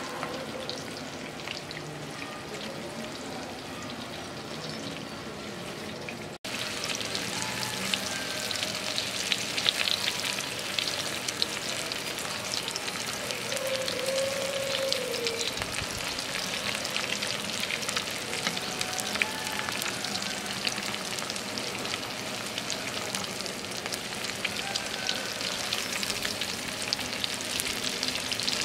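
Battered fish pieces deep-frying in a wok of hot oil: a steady crackling sizzle with many fine pops. It gets louder after a brief break about six seconds in.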